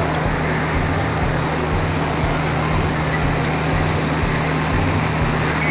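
Diesel locomotive engine running steadily with a low, even hum and throb as the locomotive moves slowly up to the coaches to couple.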